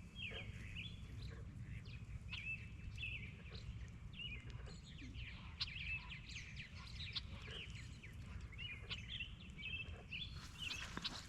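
Several birds calling, with frequent short chirps and hooked whistled notes, over a steady low rumble. Louder clicks and rustling start near the end.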